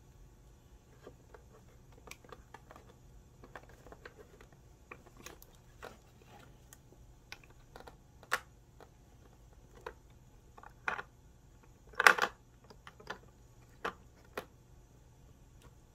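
Cat pawing at a plastic food puzzle: scattered light clicks and taps of its clear plastic domes being pushed and rocked, with a louder rattling clatter of plastic about twelve seconds in.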